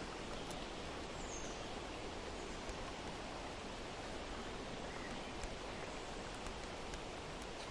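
Steady outdoor nature ambience: an even wash of noise like rustling or running water, with a faint, brief bird chirp about a second in.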